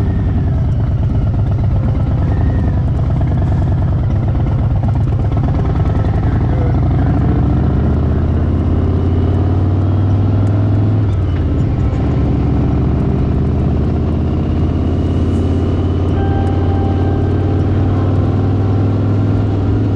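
A vehicle engine running steadily: a low drone with a fast, even pulse, its pitch shifting slightly about eight seconds in.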